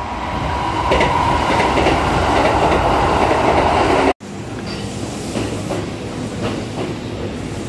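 A Kintetsu orange-and-blue limited-express train running past the platform, its wheel and running noise swelling over the first second and staying loud. About four seconds in the sound cuts off abruptly, then a green-liveried Kintetsu commuter train rolls past more quietly, with scattered wheel clicks.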